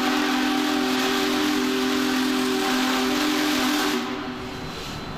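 A Union Pacific steam locomotive's chime whistle sounds one long blast, several notes together, over steady hissing steam. The blast stops about four seconds in, and the hiss carries on more quietly.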